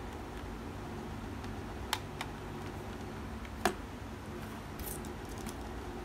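A few sharp plastic clicks and taps from handling a toy RC helicopter and its transmitter, over a steady low hum. Two clicks come about two seconds in and a louder one just past halfway, with fainter ticks near the end.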